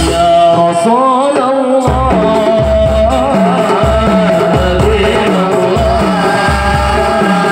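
Men and boys singing a melismatic Maulid devotional chant through microphones, to a steady beat of hand-held frame drums (rebana). The drums stop for about a second and a half near the start, then come back in.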